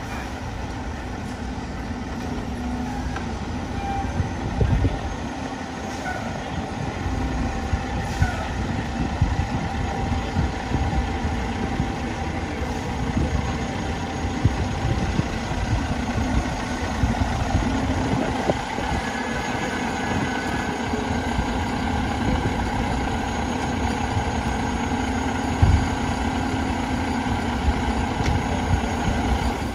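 Fire engine's diesel engine running steadily as the truck pulls out, growing a little louder as it moves off, with a few short knocks.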